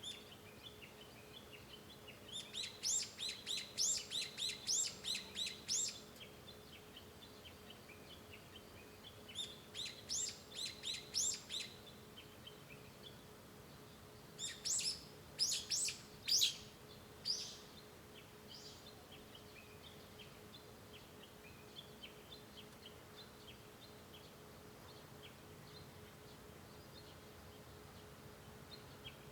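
Japanese bush warbler calling: three bursts of rapid repeated high notes, each two to three seconds long, the last the loudest. Fainter scattered chirps follow, over a faint steady hum.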